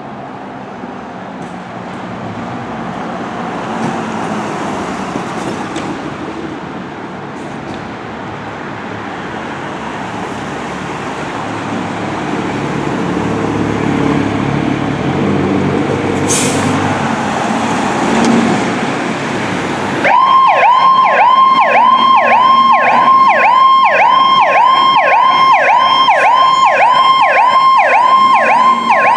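Fire engine approaching, its engine and road noise growing steadily louder, with a short hiss about sixteen seconds in. About twenty seconds in its electronic siren switches on suddenly on yelp, sweeping rapidly at about two to three cycles a second, and this is the loudest sound.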